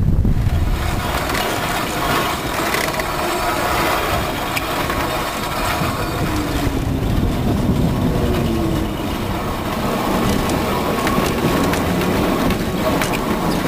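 Vintage Standard-type tram running on its track, heard close up from its side: wheels rumbling and clattering over the rails with a dense rattling of the riveted body and running gear, and a faint wavering wheel squeal near the middle.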